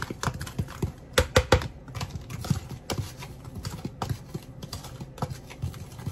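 Metal spoon stirring dry seasoned breading mix in a plastic container: quick, irregular clicks and scrapes of the spoon against the plastic, with a few louder knocks about a second in.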